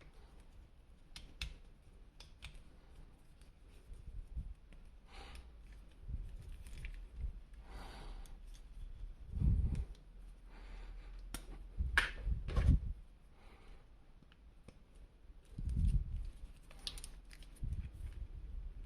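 Action-figure packaging being handled and opened: scattered clicks and rustling of plastic and cardboard, with a few dull bumps, the loudest about halfway through, around two-thirds of the way in and again near the end.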